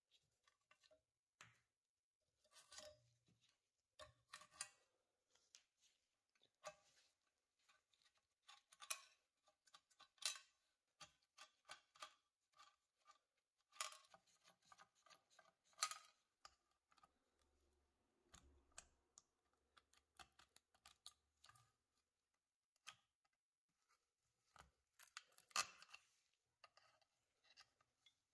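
Quiet, irregular metallic clicks, clinks and short scrapes as small nuts and washers are worked loose from the terminal posts and dropped into the brass toaster's sheet-metal base.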